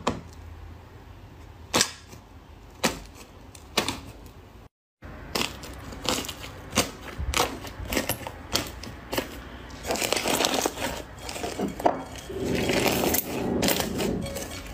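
Fingers pressing through the dried, crusted top skin of a slime, cracking it with a few separate pops at first and then dense, steady crackling as the crust breaks into flakes; near the end the slime is squeezed by hand.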